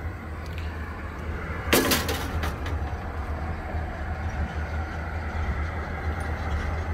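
The thin sheet-metal door of a Little Chief smokehouse clanking once as it is swung open, about two seconds in, over a steady low rumble.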